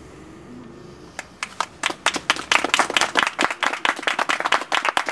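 A small group of people clapping their hands. The applause starts about a second in and builds into dense, irregular clapping.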